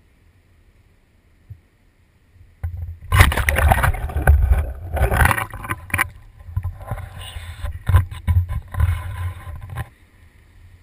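A frog gig jabs into shallow pond water about three seconds in, followed by several seconds of loud splashing and sloshing as a speared bullfrog thrashes and is hauled out; it ends with a few light knocks.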